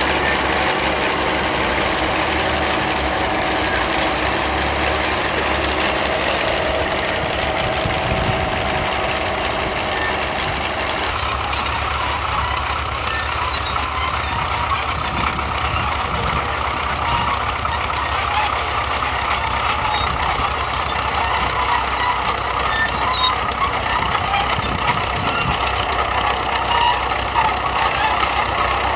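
Crawler tractors pulling ploughs, their engines running steadily throughout. From about eleven seconds in, a County crawler built on a Fordson Major takes over: its steel tracks clank and squeak over the engine.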